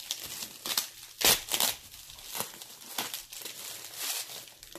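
Plastic packaging crinkling and rustling as hands work at a mailed parcel, in irregular handfuls, with the loudest crackle about a second in.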